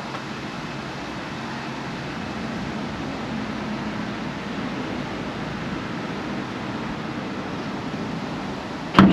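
Steady rushing outdoor background noise, then near the end a sudden loud clunk as the Tesla Model 3's front trunk lid unlatches on a remote command from the phone app and springs up on its newly fitted gas struts.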